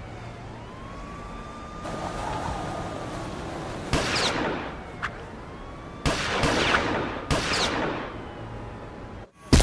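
Home-made foley for web-swinging: a series of whooshes, several opening with a sharp snap like a web-shooter firing, over a faint wavering siren-like wail. It ends in a sudden loud hit just after a split second of silence.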